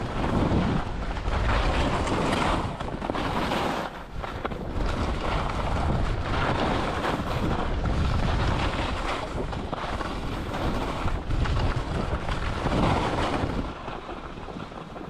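Wind buffeting the microphone during a ski run, a loud rushing noise that rises and falls in surges and eases near the end.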